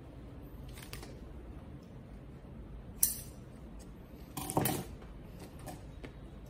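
Small clicks and knocks of scissors and a marker pen being handled and set down on a tabletop: one sharp click about three seconds in, then a short clatter about a second later, with a few fainter taps around them.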